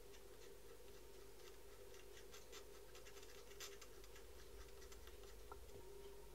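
Faint scratching and light ticks of a pen-like tool's tip drawn over the primed surface of a wooden cross, over a steady low hum.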